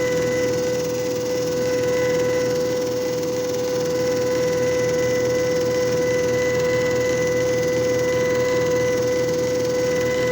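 JFJ Easy Pro disc repair machine running: a steady motor hum with one constant pitched tone over an even noise.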